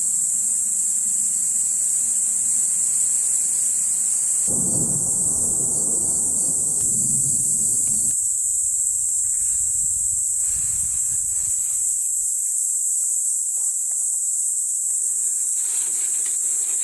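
Steady, loud, high-pitched drone of an insect chorus in summer woodland. A low rumble sits underneath for the first half and cuts off abruptly about eight seconds in.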